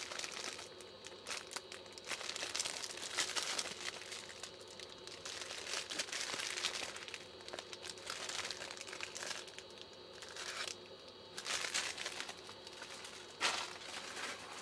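Clear plastic wrappers on packets of compressed cellulose soldering-tip cleaning sponges crinkling in irregular bursts as they are handled and shuffled, with one sharp tap near the end.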